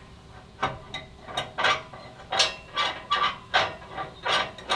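A hand tool working against the aluminum channel of a flatbed frame: about ten short metallic knocks and scrapes at an uneven pace.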